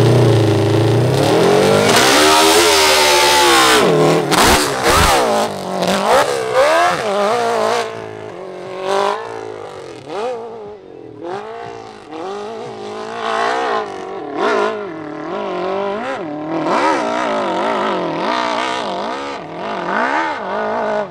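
Open-class hill climb motorcycle engine at full throttle for the first few seconds, then its revs rising and falling in quick swells as the throttle is worked, with a couple of thumps about four to five seconds in.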